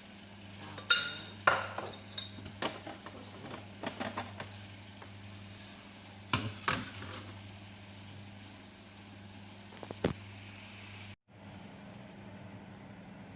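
Sharp clinks and knocks from handling a kettle or water heater and its lid while it is set up to boil vinegar for descaling, over a steady low hum.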